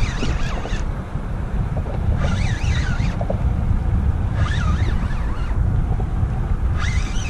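Wind buffeting the microphone, with four short spells of a spinning reel's gear whine rising and falling in pitch as a hooked fish is reeled in on a light rod.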